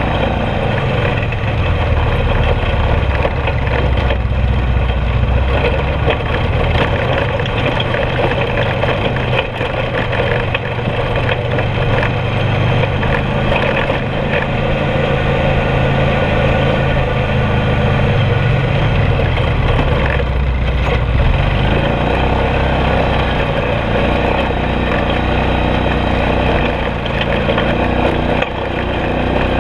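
ATV (four-wheeler) engine running on the move close by, its pitch rising and falling with the throttle.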